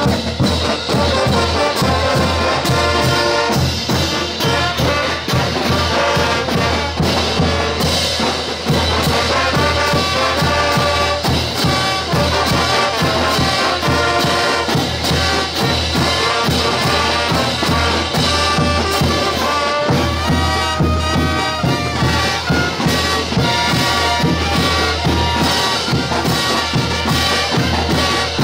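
Bolivian brass band playing: trumpets and trombones carry the melody over a steady low bass and a regular drum beat.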